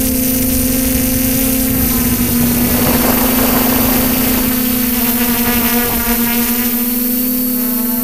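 Multirotor drone's electric motors and propellers humming steadily, heard up close from the drone's own onboard camera, with slight shifts in pitch as it manoeuvres. A burst of wind rushes over the microphone around the middle.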